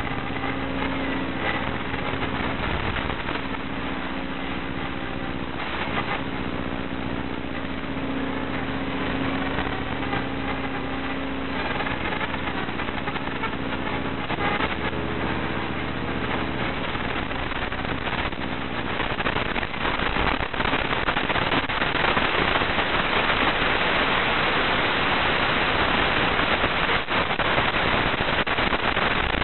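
Steady static hiss on the audio track of an analog FPV video recording, with no sound from the drone itself. A low steady hum runs under it for roughly the first dozen seconds, and the static grows louder and rougher about two-thirds of the way through.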